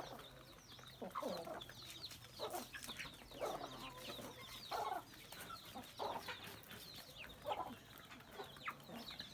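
A flock of free-range chickens clucking, with short calls from many birds coming several times a second and higher chirps among them.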